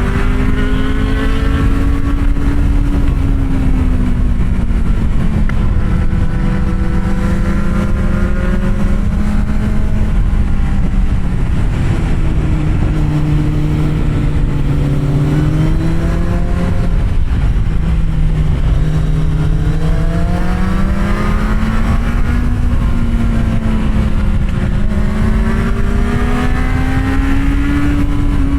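Kawasaki Z750R's inline-four engine with an SC-Project aftermarket exhaust, ridden at an easy pace, its pitch slowly rising and falling several times as the throttle opens and closes. Heavy wind rumble on the microphone lies underneath.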